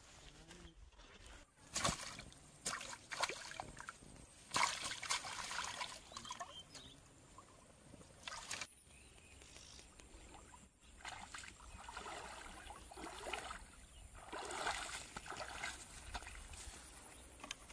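Irregular splashing and sloshing in shallow water, from hands working in the water and a person wading through it, in uneven bursts.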